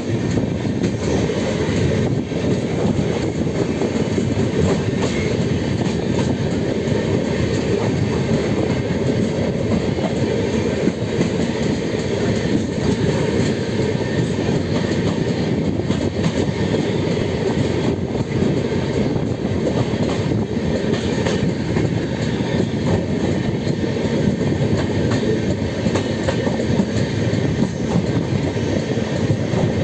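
Indian Railways LHB passenger coaches running on the track: a steady, loud rumble of wheels on rails, with occasional faint clicks over the rail joints.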